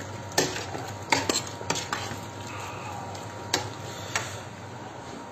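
A spoon stirring thick caponata in a stainless steel pot, scraping and clinking against the metal with a handful of sharp, irregular clinks.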